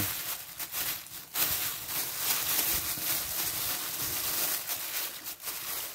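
Thin plastic bag crinkling and rustling as hands knead chopped raw beef inside it to work in the seasonings for beef koi, louder from about a second and a half in.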